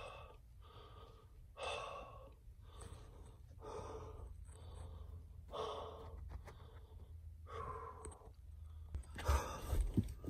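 A man breathing heavily close to the microphone, a breath about every two seconds, over a low rumble. He is worn out from crawling through a tight crawlspace. A few sharp bumps come near the end.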